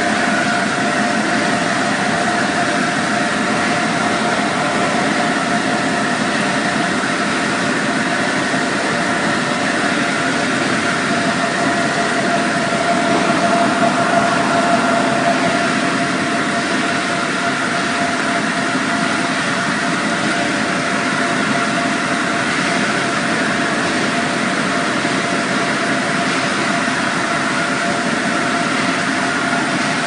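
Alluvial gold ore washing machinery running steadily: a constant mechanical hum with a few steady tones over an even rushing noise.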